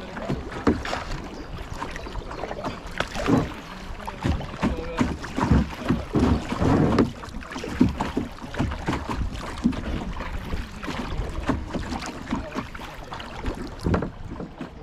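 Canoe paddles dipping and splashing in a small flowing river, with irregular splashes and knocks and wind on the microphone.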